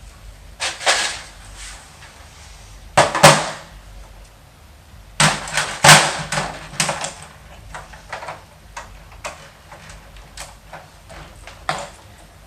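Knocks and clunks of computer parts being handled and set down, loudest about three seconds in and again around five to six seconds, then lighter clicks and taps.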